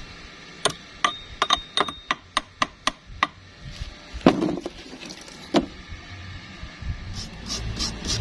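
Hammer striking metal: a quick run of about a dozen sharp taps, some ringing, followed by two heavier knocks a second apart. Near the end a low hum starts under fast scraping strokes.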